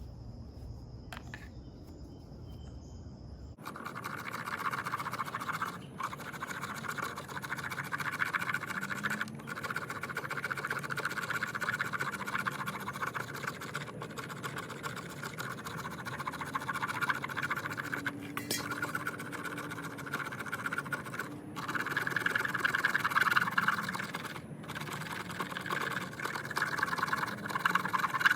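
The freshly ground, square spine of a stainless steel Mora Companion knife scraping pine in quick repeated strokes, starting about three and a half seconds in and pausing briefly a few times. The burr on the square edge lets it shave the wood.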